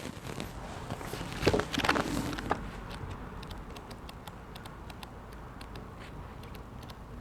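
Quiet room with a low steady hum; a few sharp knocks about a second and a half to two and a half seconds in, then faint, scattered clicks.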